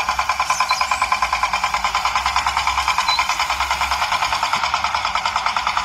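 Steady, rapid engine-like chugging of a mini tractor running, about nine even pulses a second.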